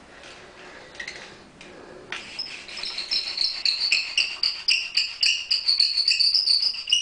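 Maple spindle of a horizontal foot-held friction-fire drill squeaking in its hearth board as a rope spins it back and forth. The squeak is high and rhythmic, about three strokes a second, starting about two seconds in and getting louder, with fainter scuffing before it.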